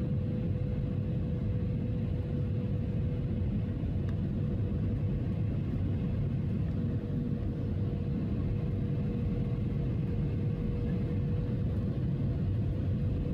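Steady cabin noise of an airliner in flight, heard from a window seat over the wing: an even low roar of engines and rushing air, with a faint steady tone held on one pitch.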